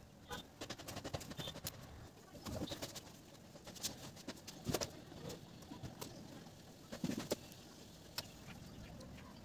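Light clicks and rustling as insulated wires are pushed and twisted by hand. A bird coos a few times.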